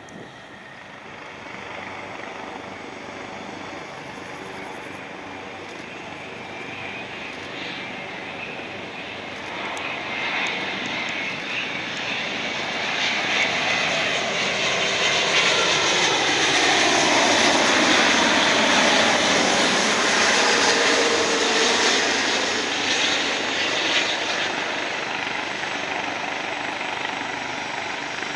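Boeing 787 airliner with Rolls-Royce Trent 1000 engines on final approach at low thrust. Its whine and rush grow louder as it nears and peak as it passes close by, with the pitch sliding down. The sound then eases off as it heads to touchdown.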